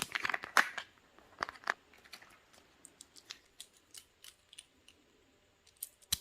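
Hands handling a Kinder Surprise egg and its toy: a flurry of crinkling and clicking in the first couple of seconds, then sparse light plastic ticks.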